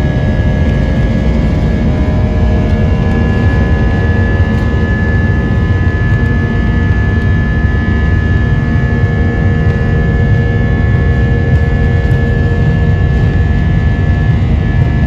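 Jet airliner's engines at takeoff thrust, heard from inside the cabin: a loud, steady rush with a steady high whine over it.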